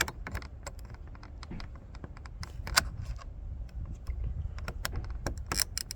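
Irregular small plastic clicks and taps as a tool pries at a plastic trim piece on a GMC Yukon XL's interior door panel to pop it out, with a few louder clicks, the loudest about three seconds in and near the end, over a low rumble.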